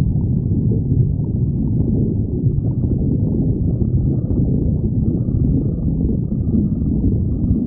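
A person's stomach growling: an unbroken low rumble.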